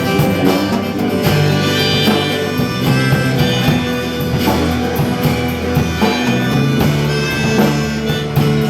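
Instrumental break in a rock song, with guitar and the band playing on between sung verses.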